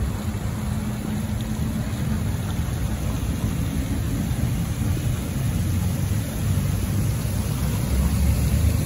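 Wind rumbling steadily on the microphone over the even splashing hiss of fountain water jets.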